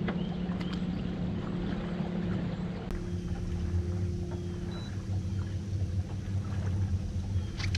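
Bow-mounted electric trolling motor running against the current, a steady hum that drops lower in pitch about five seconds in, over water and wind noise.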